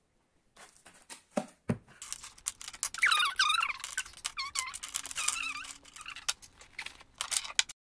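Plastic pens being gathered and set down by hand on a desk: a quick run of small clicks and clatters that starts about two seconds in.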